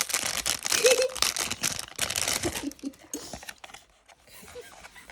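Crinkling of a thin plastic bag as an enamel pin is pulled out of it, dense crackling for about three seconds, then dying down to light rustles.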